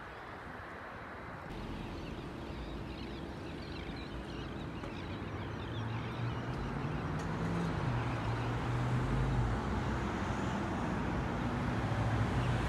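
Road traffic: cars passing on a street, a steady rush with a low engine hum that grows louder over the second half.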